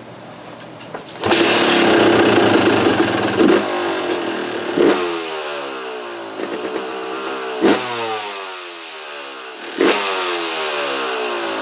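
2004 Yamaha YZ250's single-cylinder two-stroke engine starting about a second in and running, with four quick throttle blips whose revs fall away each time. It is running rich, starting without the choke.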